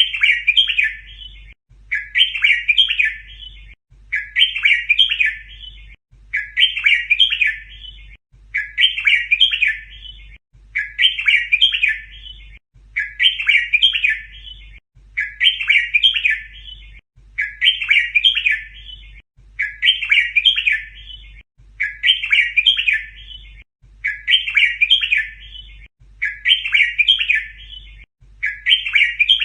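Red-whiskered bulbul song: the same short warbled phrase repeated at even spacing, about every two seconds, played as a tutor song for teaching young bulbuls.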